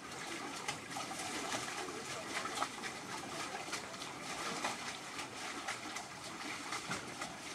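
Steady rushing water noise, with many irregular short crackles and clicks.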